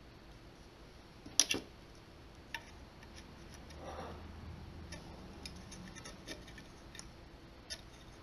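Light clicks and taps of small metal parts being handled while a Willcox & Gibbs sewing machine's automatic tension assembly is taken apart by hand. There is one sharp double clack about a second and a half in, then scattered small ticks.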